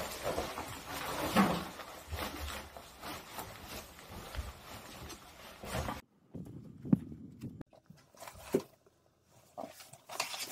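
Close fabric rustling and handling noise as a school uniform is pulled on and adjusted. Then it cuts off abruptly to quieter handling with a few soft knocks.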